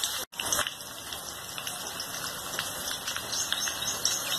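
Sliced onions sizzling steadily in hot mustard oil in a kadhai as they fry to golden brown, with a few faint scrapes of a metal spatula. The sound drops out for a moment just after the start.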